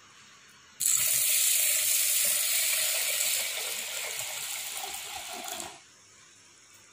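Water poured in a stream into a stainless steel pot of urad dal, rinsing the lentils. It starts suddenly about a second in, splashes steadily, then fades a little and stops near the end.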